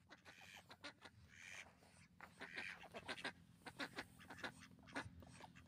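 Domestic mallard-type ducks quacking softly in a series of short calls.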